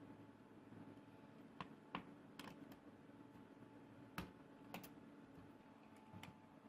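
Faint scattered sharp clicks and taps, about eight of them and irregularly spaced, the loudest a little past four seconds in, over a steady low hum.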